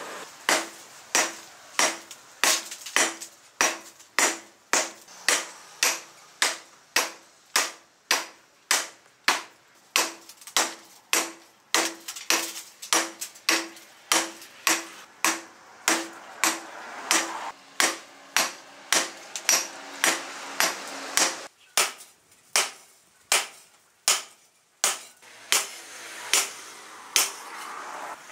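A blacksmith's hammer strikes red-hot steel on an anvil in a steady rhythm of about two blows a second, each blow with a short metallic ring. This is rebar being hammered flat into a cleaver blade. There are a couple of brief pauses a little past twenty seconds.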